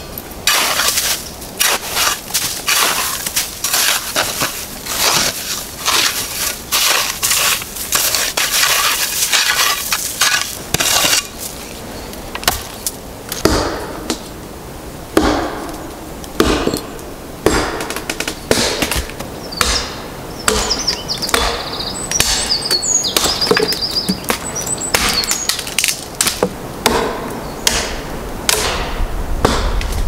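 A small shovel scraping and knocking crusted snow and ice off a tree stump in quick, crunching strokes for about the first eleven seconds. Then dry branches are snapped off a tree one by one in sharp cracks, with a bird chirping briefly midway.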